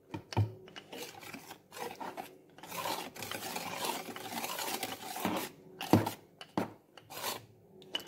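Wire whisk beaters of a hand mixer working through thick cake batter in a plastic bowl: an uneven scraping and sloshing, with a few sharp knocks against the bowl near the end.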